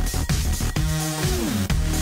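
Electronic dance music with a heavy, pulsing beat; about halfway through, one note slides down in pitch.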